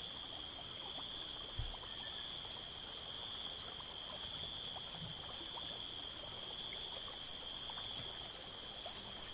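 Rainforest insect chorus: a steady high-pitched trill with a fainter, higher chirp repeating about two to three times a second.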